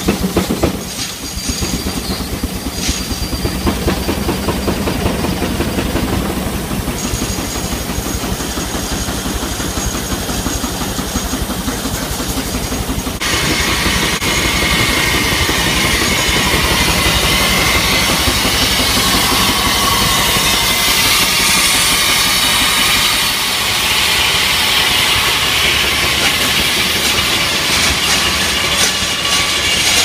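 Steam engine driving a sawmill: steady, fast rhythmic chuffing with steam hiss. About thirteen seconds in, a louder, higher noise joins and carries on.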